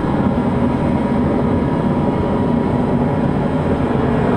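Forced-air torpedo heater running: a steady roar of fan and burner, with a faint steady hum, as an exhaust downpipe is held in its hot blast to soften it for bending.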